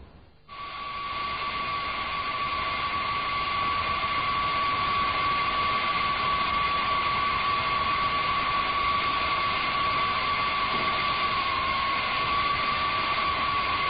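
Steady high-pitched turbine whine over an even hiss, fading in about half a second in and then holding level.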